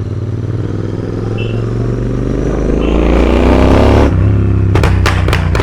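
Royal Enfield Interceptor 650's parallel-twin engine accelerating, its pitch rising steadily for about four seconds. Then the throttle is shut and the exhaust gives a rapid string of pops and bangs on the overrun, from a tune set up to make them.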